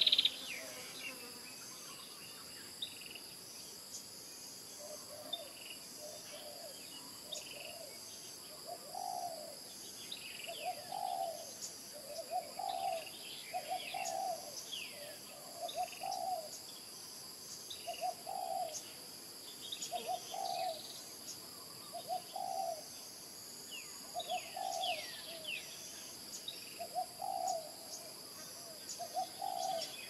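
Spotted dove cooing, a long series of low notes about one a second that starts about five seconds in, over a steady high-pitched insect drone. Short chirps of small birds are scattered throughout, and there is a brief loud high sound at the very start.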